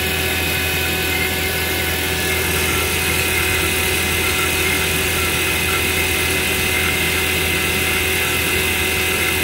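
Refrigeration vacuum pump running steadily, a constant drone as it evacuates the heat pump's refrigerant circuit after a compressor and filter-drier change.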